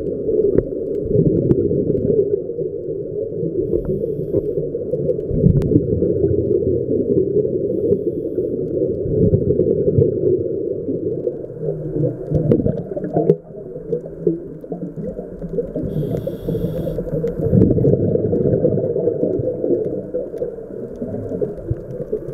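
Muffled underwater rumble picked up by an action camera sealed in a waterproof housing while diving, rising and falling in level, with scattered small clicks and a brief hiss about sixteen seconds in.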